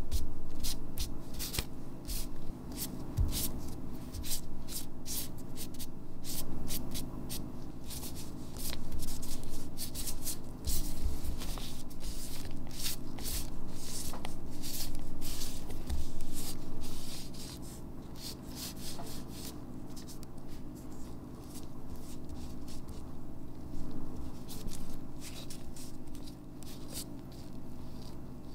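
Gloved fingers rubbing and smearing thick wet paint around on a paper card, with many small clicks and smacks as the glove presses and slides through the paint. A steady low hum runs underneath. The rubbing grows sparser and quieter in the last third.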